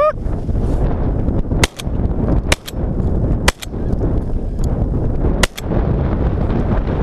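A volley of shotgun shots at snow geese: several sharp reports, some in quick pairs, between about one and a half and five and a half seconds in. Steady wind noise on the microphone runs underneath, and a goose calls right at the start.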